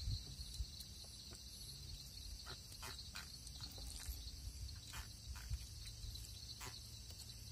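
Night insects chirring in a steady, unbroken high drone, with scattered faint clicks and taps of handling close by.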